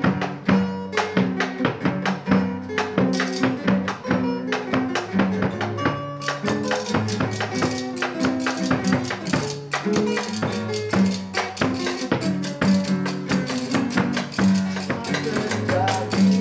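Acoustic guitars playing a strummed dangdut-style accompaniment with a walking bass line, over a steady jingling percussion beat that gets brighter about six seconds in.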